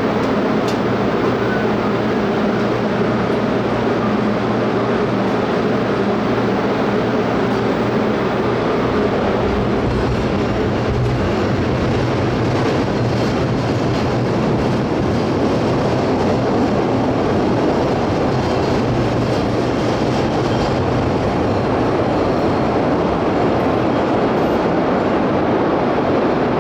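Chicago 'L' rapid transit train running: a steady rumble of wheels on rails and traction motors, heavier in the low end from about nine seconds in.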